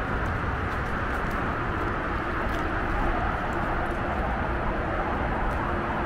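Wind buffeting the microphone outdoors: a steady low rumble under an even hiss.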